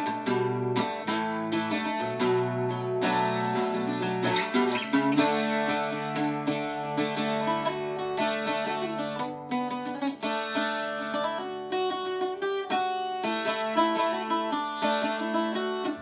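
Cas Davey bouzouki played solo, improvising a chordal accompaniment: picked and strummed notes over low strings that ring on for several seconds at a time.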